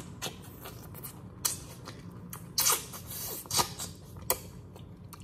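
Boiled crawfish being peeled and eaten close to the microphone: scattered short cracks, wet smacks and a brief slurp, a few each second.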